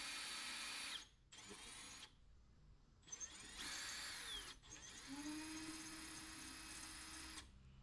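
Cordless drill boring a hole in a Ford Bronco's metal roll bar for a nutsert. It runs in four spurts: it stops about a second in, runs briefly, runs again with its whine sliding down as it stops, then makes a longer final run that stops near the end.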